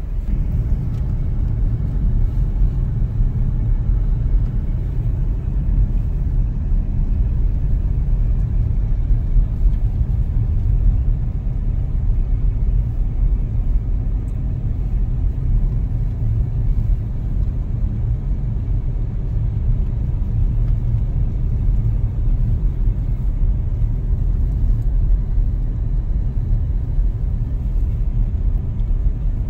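A car driving along a road, heard from inside the cabin: a steady low rumble of tyre and engine noise.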